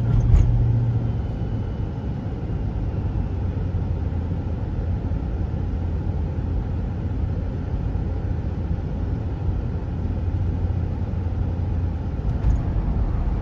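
Road and engine noise inside a moving car: a steady low rumble.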